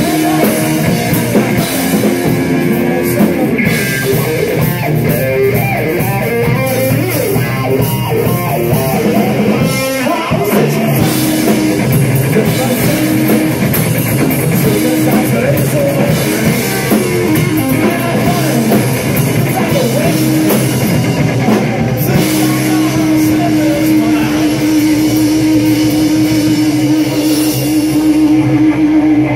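Blues-psychedelic rock trio playing live, guitar over a drum kit, with one long note held over the last several seconds.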